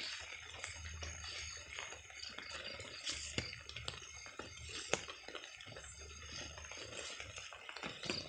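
Night insects chirping, high-pitched and repeated, over scattered clicks and rustling from footsteps and handling in grass and undergrowth; the sharpest clicks come about three and five seconds in.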